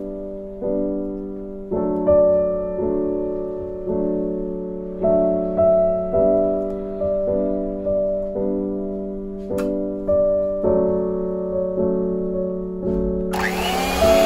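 Piano background music, single notes struck at an even pace about every half second to second. Just before the end an electric hand mixer starts running under the music.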